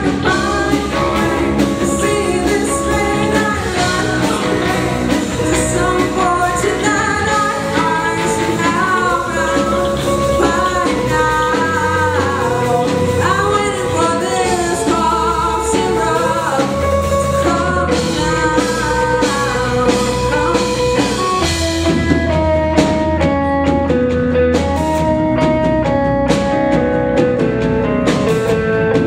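Small rock band playing a song, with a lead singer over guitar and drum kit. Past the two-thirds mark the cymbals thin out and long held notes take over from the vocal line.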